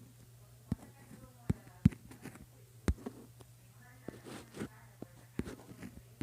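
A few soft, irregular clicks and knocks over a steady low hum, with a faint voice around the middle.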